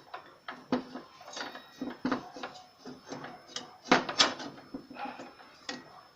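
Scattered clicks and light metal knocks as a new blade is seated on a table saw's arbor and its parts are handled, with the loudest pair of knocks about four seconds in.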